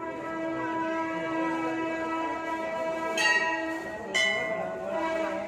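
Metal temple bell ringing, its tones held between strokes, struck again about three seconds in and once more about a second later.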